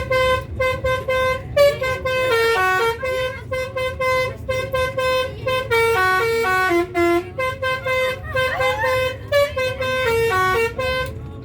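Indonesian telolet basuri bus horn playing a fast melody of short stepped notes, with brief pauses between phrases, stopping shortly before the end, over a steady low rumble.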